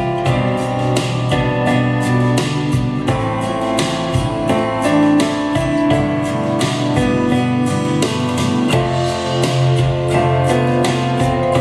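Guitar music with steady, even strumming, played through a monitor speaker driven by a DIY LM3886 bi-amplifier.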